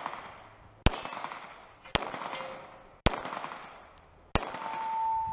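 Pistol shots fired one at a time, four evenly paced shots about a second apart, each followed by a short echoing tail. After the last shot a steady ringing tone holds for about a second.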